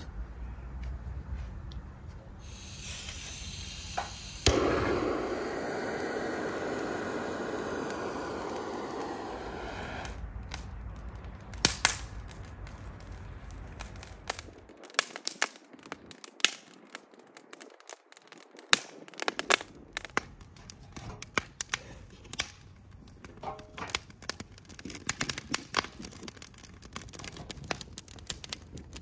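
Wood fire in a metal grill crackling and popping, with many sharp, irregular pops through the second half as split firewood catches. Earlier there is a steady rushing noise lasting several seconds.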